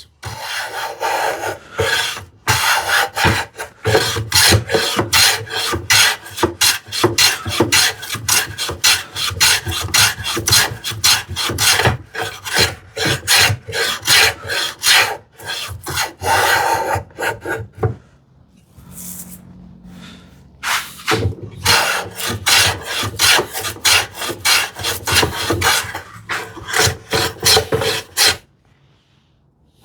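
Hand plane taking quick, repeated end-to-end shavings off a wooden drawer box, the surface still proud and being brought down flush. The strokes pause about eighteen seconds in and start again a few seconds later.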